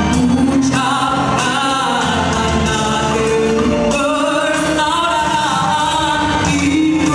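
A nasyid vocal group singing, several voices together in harmony.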